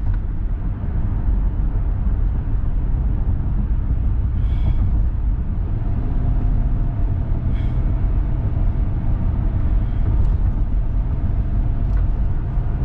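Steady, loud low rumble of a running vehicle, with two faint short chirps partway through.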